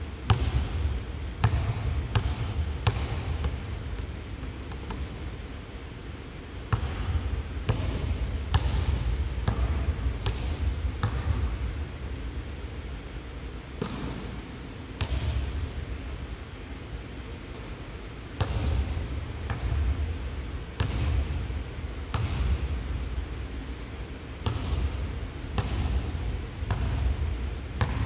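Basketball being dribbled on a hardwood court in a large empty arena: a long string of sharp bounces at an uneven pace, with a few short pauses, over a low steady rumble of the hall.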